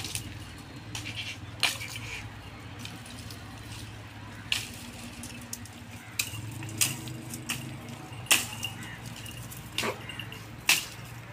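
Dry twigs and branches cracking and snapping in a pile of brush as branches are pulled off for goats to browse: separate sharp snaps every second or two. A steady low hum runs underneath.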